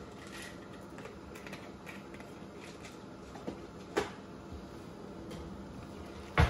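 Small clicks and taps as a plastic spice jar is handled and its cap twisted open, over a low steady background. Just before the end a loud sharp clack as the glass lid of the frying pan is lifted.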